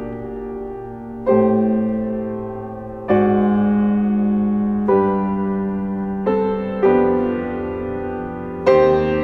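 Grand piano played slowly: full chords struck every second and a half to two seconds, each left to ring and die away before the next.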